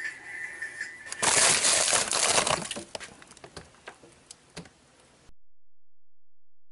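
Frozen fish packages in stiff freezer paper being handled in a freezer: a loud crackling rustle for about a second and a half, then scattered light clicks and knocks. A faint steady high whine is heard before the rustle, and the sound cuts off about five seconds in.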